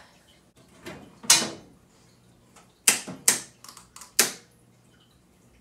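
A handful of sharp metallic clicks and clacks from the steel door and latch of an electrical breaker panel being opened and handled. The loudest comes about a second in, and three more follow close together around three to four seconds in.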